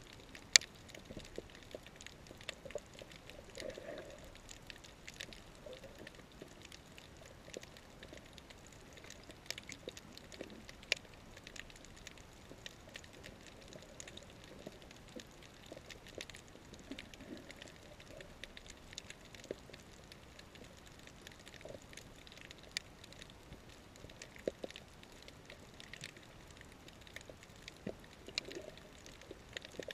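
Underwater coral-reef ambience heard through a camera's underwater housing: irregular sharp clicks and crackles scattered over a faint steady hiss.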